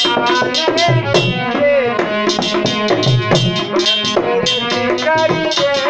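Shiva bhajan music: a bending melodic lead over a steady beat of hand drums such as tabla.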